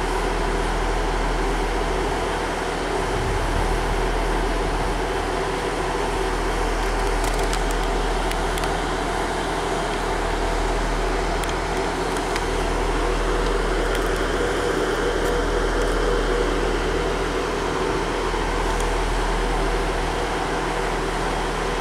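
Diesel multiple unit idling at the platform: a steady engine drone with a constant hum, unchanging as the train waits to depart.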